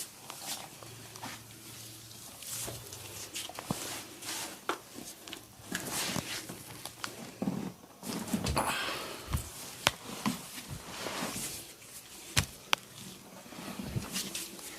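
Hands-on barber massage: hands rubbing and patting over skin and hair, with many scattered sharp clicks and smacks, the sharpest a little before halfway and twice about three quarters through.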